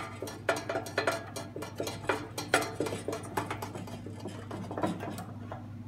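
Irregular small clicks and taps of hands working a small screw and metal and plastic parts inside a printer's housing, busiest in the first half, over a steady low hum.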